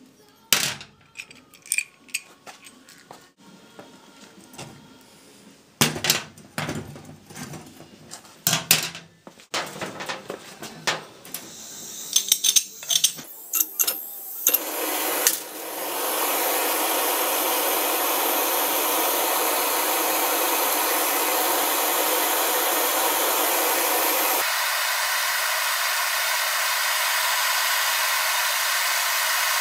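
Sharp metal clicks and knocks from hand tools working a steel finish nail into a pin. About halfway through, a loud, steady hiss takes over, and its deeper part drops away near the end.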